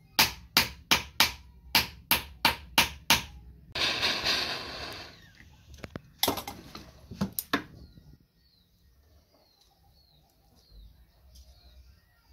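A hammer striking a piece of silver on a steel anvil, about nine ringing blows at roughly three a second. A rushing hiss follows briefly, then a few more knocks, and faint bird chirps repeat near the end.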